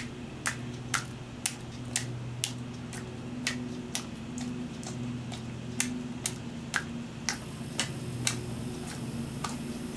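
Dog smacking its lips and tongue to work sticky spray cheese off the roof of its mouth: sharp clicks about twice a second, slightly uneven, over a steady low hum.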